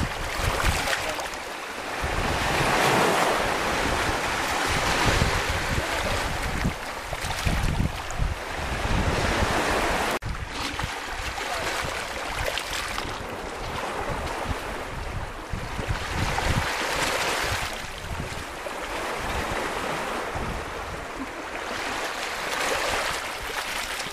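Small Baltic Sea waves washing in over a pebble shore and running back among the stones, swelling and easing every few seconds. Wind buffets the microphone, with a brief dropout about ten seconds in.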